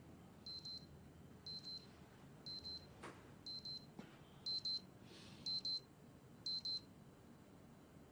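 Digital alarm beeping in short double beeps, about one pair a second. It is waking a sleeper, with a couple of faint clicks in between.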